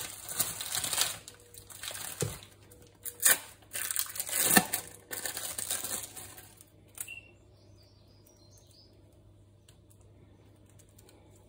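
Plastic wrapper of a processed cheese slice crinkling and tearing as it is peeled open, in a run of loud, irregular rustles that stops after about six seconds.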